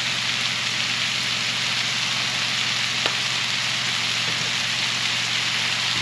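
Sausage, mushrooms, onions and peppers sizzling steadily in a frying pan, with a single light tap about halfway through.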